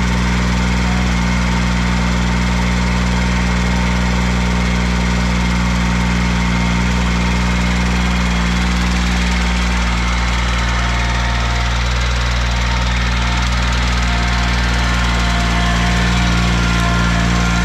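Cub Cadet 1512 garden tractor's engine running steadily and loudly close by while the tractor drags a chained spruce log.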